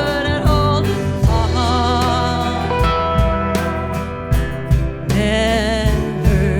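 An alt-country band playing an instrumental passage: regular drum hits and bass under a sustained lead melody that wavers and bends in pitch.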